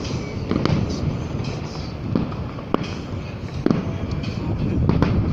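Fireworks exploding in an aerial show: a string of sharp bangs and cracks, about eight in five seconds, some landing close together near the end, over a steady low rumble of background noise.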